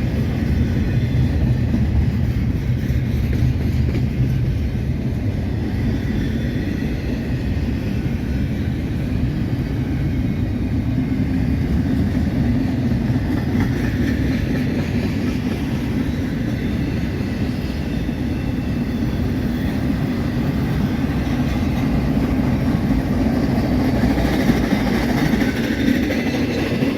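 BNSF freight train rolling past: a steady, continuous rumble of steel wheels on the rails.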